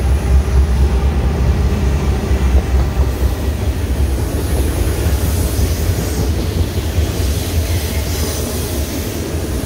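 Intermodal freight train passing close by: a steady low diesel engine drone under the rumble and hiss of wheels on the rails.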